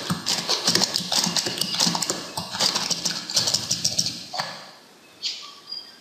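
Computer keyboard being typed on, rapid clicking keystrokes that stop about four seconds in, followed by a few separate key or mouse clicks.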